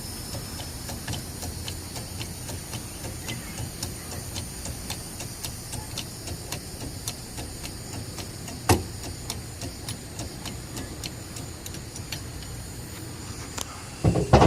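Faint scattered clicks and handling noises over a steady background hiss, with one sharper knock about two-thirds of the way through and another near the end.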